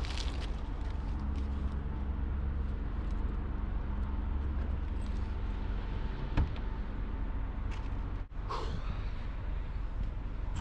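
Steady low rumble of a Jeep running, with a faint steady hum over it. A single click comes about six seconds in, and the sound breaks off briefly near the end, as at a cut.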